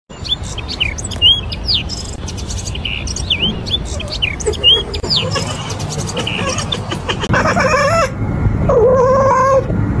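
Small birds chirping, many short quick chirps in the first half. Two longer wavering calls come near the end.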